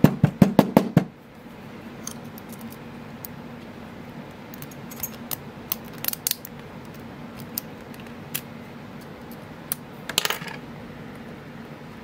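Small metal clicks and rattles from a brass padlock and a steel hand tool working in its pin chambers while its pins are taken out: a quick burst of six or seven sharp clicks in the first second, light scattered ticks after that, and a short rattle about ten seconds in.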